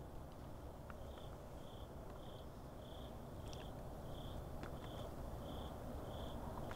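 A cricket chirping at night: short high chirps repeating evenly about one and a half times a second, starting about a second in, over a faint low hiss with a few small clicks.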